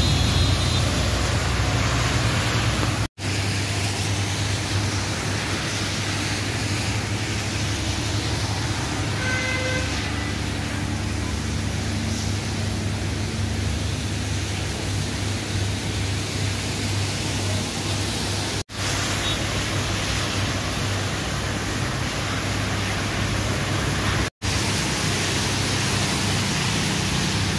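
Steady hiss of heavy rain mixed with the low rumble of passing road traffic on a wet road, cutting out for an instant three times.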